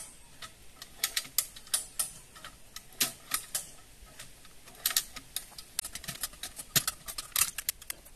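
Hand-operated lever winch (Tifor 4-tonne come-along) being pumped under heavy load to pull out a tree stump: irregular runs of sharp ratchet clicks.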